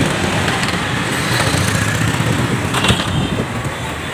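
Motorcycle engine running with road traffic noise, heard while riding on the motorbike through traffic; a brief clatter about three seconds in.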